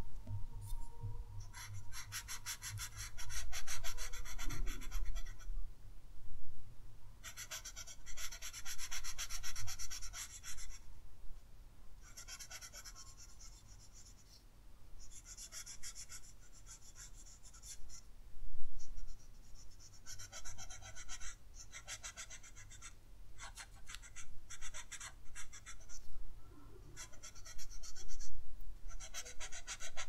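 Paper blending stump rubbing graphite into drawing paper in quick back-and-forth strokes, a soft scratchy hiss that comes in spells of a few seconds with short pauses between.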